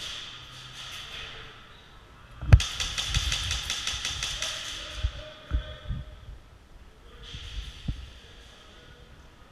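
Faint bursts of rapid airsoft rifle fire, with scattered low thuds and one sharp knock about two and a half seconds in.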